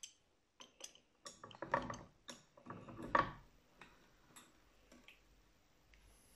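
Adjustable wrench clicking and knocking against the steel jaws of a bench vise as it is handled and fitted over a jaw: a run of quick metal clicks, loudest around two and three seconds in, then a few faint ticks.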